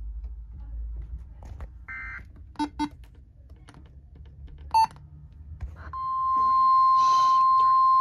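Motorola weather radio giving a few short beeps as its buttons are pressed, then about six seconds in, a loud steady single-pitch tone starts: the NOAA Weather Radio warning alarm tone announcing a new alert.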